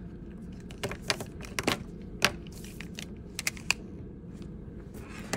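Plastic Crayola markers clicking against one another as they are sorted in the hand and set down one by one on a sheet of paper on a tabletop: a scatter of light clicks and taps, the loudest a little over two seconds in.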